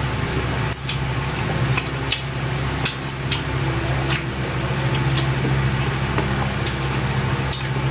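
Wet chewing and lip-smacking of people eating saucy adobong octopus with their hands, heard as many short irregular clicks, over a steady low hum.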